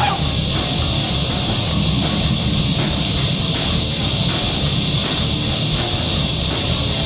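Live band playing loud, heavy distorted electric guitar and drums with a steady beat, with no vocals.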